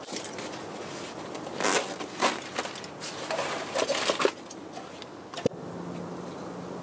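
Rucksack being handled: several bursts of fabric rustling and scraping as the pack is set down and something is pulled from its side pouch, then a single sharp click about five seconds in.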